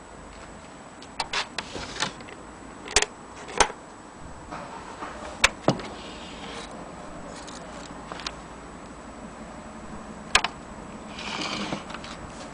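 Scattered sharp metallic clicks and knocks from handling an HMV Model 101 portable gramophone's winding crank and case, with a short scraping rustle near the end.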